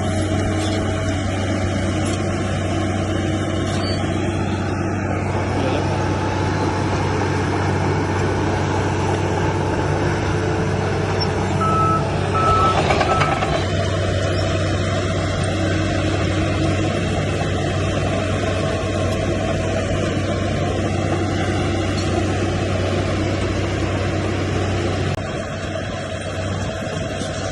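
Bulldozer's diesel engine running steadily with a deep drone. About twelve seconds in, a reversing alarm sounds three short beeps together with a brief hiss.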